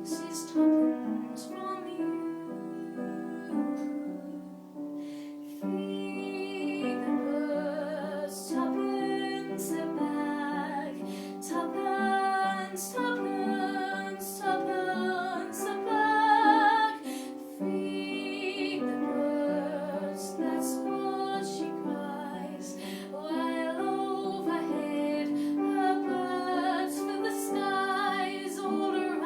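A female voice singing a slow, lullaby-like melody with vibrato over piano accompaniment.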